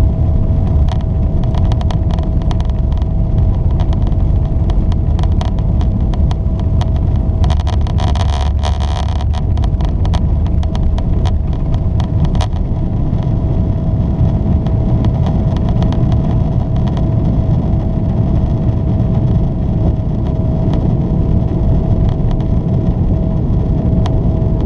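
Boeing 777 engines at takeoff power heard inside the cabin during the takeoff roll and climb-out: a loud, steady rumble with a steady whine over it. A run of rattles and knocks from the wheels on the runway comes about 7 to 12 seconds in and then stops as the airliner lifts off.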